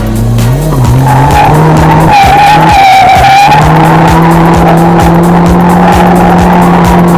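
A drift car on track with its engine held at high revs and its tyres squealing and skidding in a slide; the squeal wavers in pitch in the first half, then the engine note holds steady.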